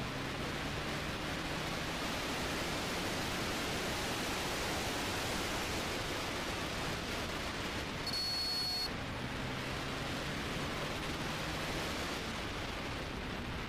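Wind rushing over the microphone on a moving Hero Xpulse 200T motorcycle, with the single-cylinder engine's low hum beneath it, plainest near the start and again after about nine seconds. A short high beep sounds about eight seconds in.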